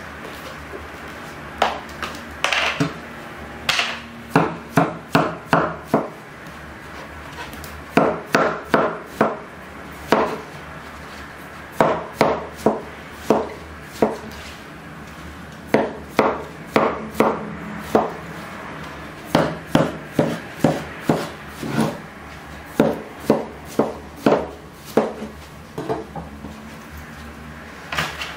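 Knife chopping through watermelon wedges and striking a wooden cutting board, in quick runs of four to six sharp knocks with short pauses between them.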